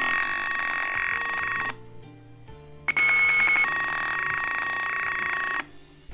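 Simulated piezo buzzer on an Arduino siren circuit, sounding steady electronic tones that step between two pitches set to 500 Hz and 900 Hz. It plays in two bursts of a few seconds each with a gap of about a second, instead of switching evenly every half second. The uneven timing is Tinkercad's simulation lagging in its playback of the buzzer.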